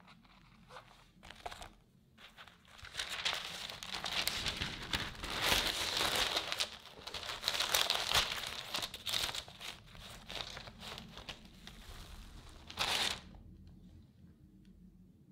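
Baking parchment paper crinkling and rustling as it is handled and peeled off the back of a baked sponge cake sheet, with a short louder rustle near the end.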